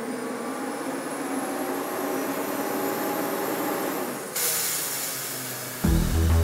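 CompAir TurboScrew portable screw compressor, driven by a turbocharged Cummins diesel, running with a whine that rises steadily for about four seconds as discharge pressure builds. About four seconds in, a sudden loud hiss of escaping air starts as the machine passes its pressure setting and the engine drops toward its 1000 rpm low idle. Music comes in just before the end.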